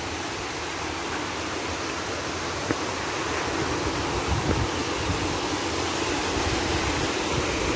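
Steady rush of water cascading over a small stone weir in a stream, growing a little louder about halfway through.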